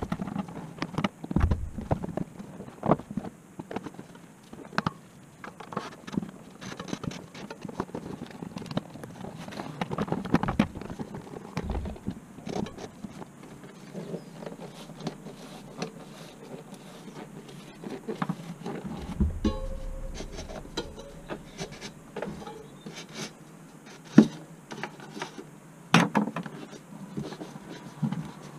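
A Schwalbe Tacky Chan mountain-bike tyre being worked by hand onto a 29er rim: irregular rubbing of rubber against the rim, with short knocks and clicks as the bead is pushed over the rim edge, a few sharper knocks near the end.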